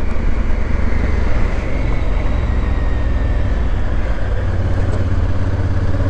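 Motorcycle engine running steadily while riding, with wind rushing over the helmet microphone.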